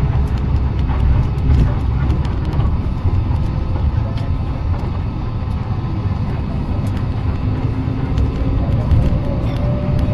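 Steady low engine rumble, with a faint rising whine starting near the end.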